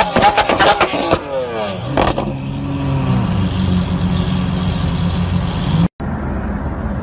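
Lamborghini Aventador V12 blipped hard, its revs falling through a rapid string of exhaust pops and crackles in the first second, with a few more cracks about two seconds in, then settling to a low steady drone. Near the end it cuts to another car's engine running.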